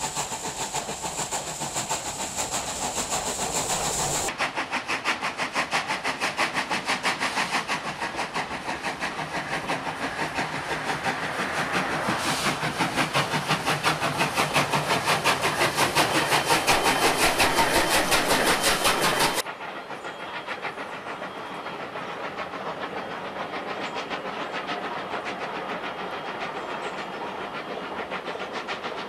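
Steam locomotive hauling a passenger train, with a fast, even beat over a hiss. The sound changes abruptly about four seconds in, grows louder, then drops suddenly to a quieter, more distant run about nineteen seconds in.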